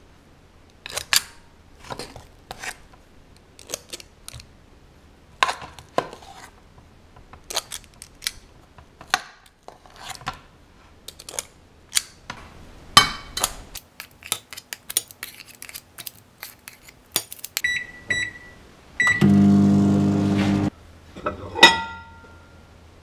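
A metal scoop clinking and scraping against a steel bowl and china plates as mashed potato is portioned out. Near the end come several short keypad beeps and a microwave oven running with a loud hum for about a second and a half. A sharp click with a short beep follows.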